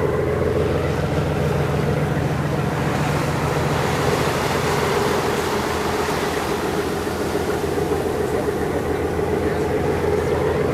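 Boat engine running steadily with a low, even drone, with water rushing past the hull.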